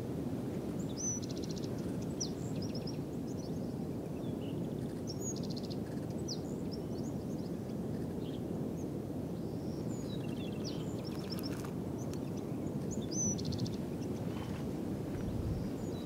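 Outdoor ambience: a steady low rushing noise, with a small songbird singing a short high phrase, a sharp chirp followed by a fast buzzy trill, about four times.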